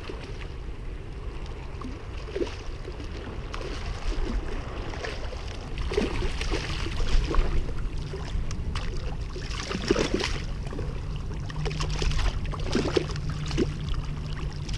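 Water splashing and sloshing at the edge of shore rocks as a hooked fish thrashes at the surface, under a steady rumble of wind on the microphone. The splashes come in irregular bursts, loudest about six to seven seconds in and again around ten seconds.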